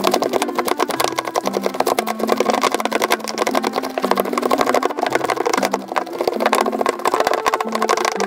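Background music: an instrumental track with a bass line stepping between notes and a quick, busy rhythm over it.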